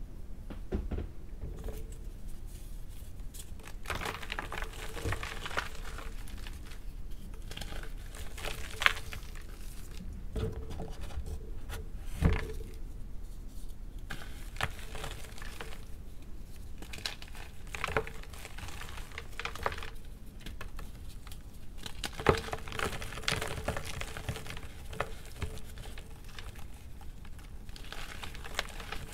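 Hands crushing and crumbling blocks of gym chalk into a tub of chalk powder: a continuous stream of irregular dry crunches and crackles, with a few sharper, louder cracks.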